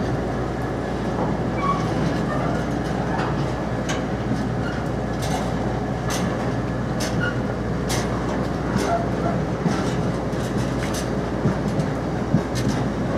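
Container freight train's flat wagons rolling past, mostly empty. A steady rumble runs throughout, with scattered clicks and knocks from the wheels and wagons.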